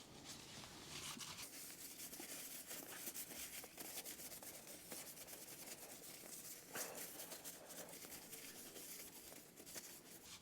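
Faint scrubbing and rustling of cleaning being wiped over the underside of a motorcycle's rear swing arm and shock area, uneven and ongoing, with a slightly louder scrape about two-thirds of the way through.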